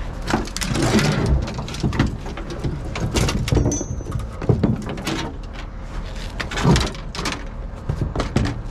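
Fishing rods and other salvaged items being handled and set down on a pickup truck's ribbed bed liner: irregular knocks, taps and scrapes, with the loudest knocks about halfway through and near the end.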